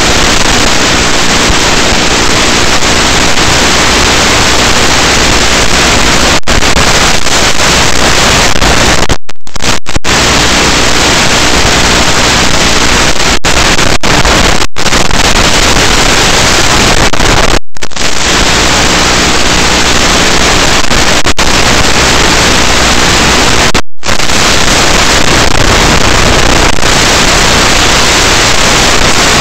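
Loud steady hiss of static from an analog FPV video link's audio channel, cutting out completely for a split second several times.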